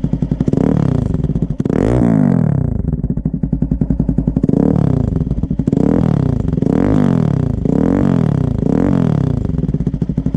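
Bajaj Pulsar NS200's single-cylinder engine breathing through a full-carbon Akrapovic muffler with its silencer insert removed (open muffler): a lumpy idle broken by about seven quick throttle blips, the biggest about two seconds in, then roughly one a second.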